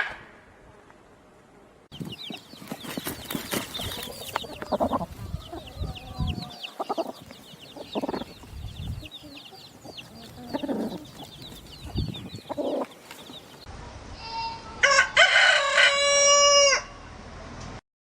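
Chickens: clucking with a steady stream of quick, high peeping calls over it, then, after a cut, a rooster crowing loudly once for about two seconds.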